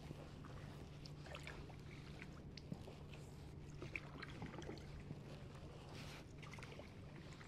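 Quiet paddling on calm water: paddle blades dipping and dripping, with small scattered splashes and trickles over a faint steady low hum.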